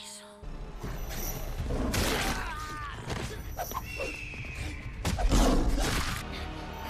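Animated fight-scene soundtrack: music with crashing impact sound effects, starting suddenly a moment in, with loud crashes about two seconds in and again about five seconds in.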